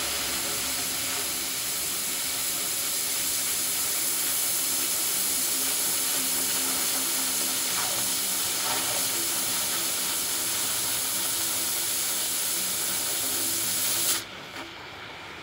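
Oxy-fuel cutting torch cutting through steel pipe: a steady hiss of the gas jet that cuts off suddenly near the end, leaving a quieter sound.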